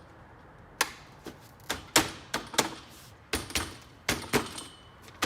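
Hard plastic car parts clicking and knocking as the grille's anchor clips are worked into the holes of the plastic bumper cover: an irregular run of sharp clicks and taps starting about a second in.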